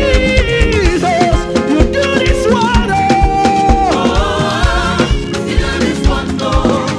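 Live gospel band playing an upbeat African praise song with a steady drum beat and held keyboard chords, a singer's voice gliding and holding notes over it.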